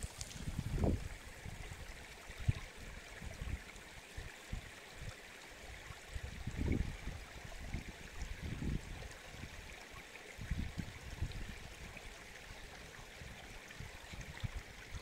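Small rocky mountain stream trickling steadily over stones, with a few short, soft low rumbles.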